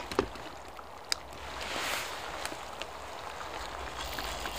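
A few light clinks of utensils against a metal mess tin over a steady hiss, while a red-wine stew simmers in it; the hiss swells briefly about two seconds in.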